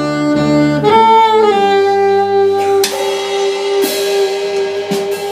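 Live jazz quartet: the alto saxophone plays a quick run of notes, then holds one long note over the band, apparently the closing note of the tune. The drummer strikes a cymbal three times, about a second apart, during the held note.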